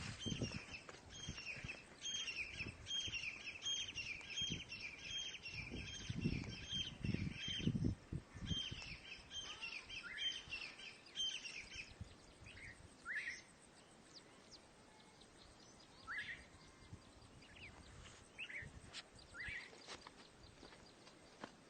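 Birds chirping: a quick string of repeated high chirps, about two a second, for roughly the first twelve seconds, then a few single rising chirps. Low thuds run underneath during the first eight seconds or so.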